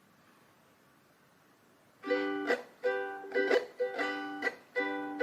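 Ukulele strummed in a steady rhythmic chord pattern, starting suddenly about two seconds in after near silence.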